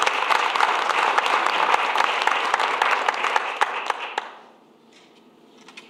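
A roomful of people applauding, many hand claps together, dying away about four seconds in.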